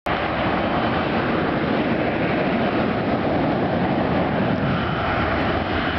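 Jet engines of a Boeing 737 airliner at takeoff power as it rolls down the runway: a steady, even rushing noise.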